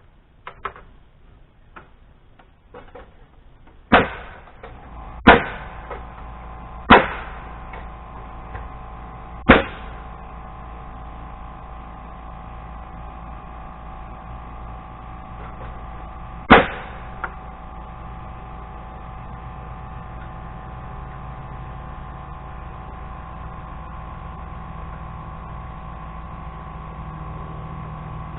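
Nail gun driving nails into a pine 2x6 header board: five sharp shots, four in the first ten seconds and a last one near seventeen seconds. A steady motor hum starts just after the first shot and runs on behind them.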